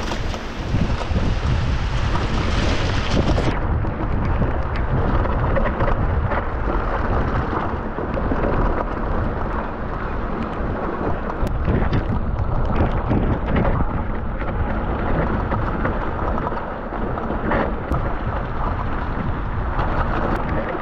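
Mountain bike rolling fast down a rough, rocky dirt track: a steady low rumble of wind buffeting the camera microphone, mixed with tyres crunching over gravel and stones and the bike rattling, with scattered sharp clicks from the bumps.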